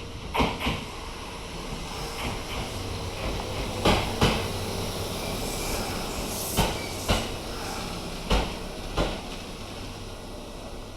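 Two-car electric local train running slowly into the station, its wheels knocking over a rail joint in pairs, one knock per axle. The two knocks in each pair spread further apart as the train slows, over a steady low running hum.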